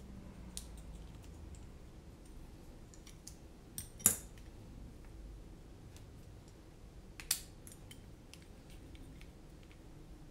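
Small clicks and taps as a carbon-fibre drone racing frame is handled and its arms and plates are fitted together, with a sharper click about four seconds in and another about seven seconds in.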